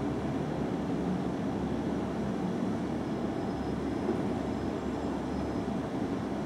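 Steady low rumble of street traffic and engines, heard from a distance, with a faint thin high tone in the middle.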